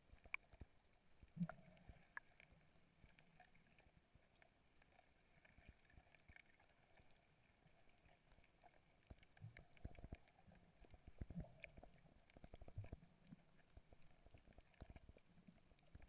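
Near silence recorded underwater by a submerged camera: a faint hiss with scattered small clicks and a few low, muffled knocks, the clearest about a second and a half in and a cluster around the tenth to thirteenth second.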